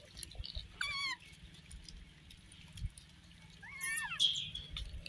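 Rhesus macaques giving short, high-pitched wavering squeals, twice: once about a second in and again, louder, about four seconds in.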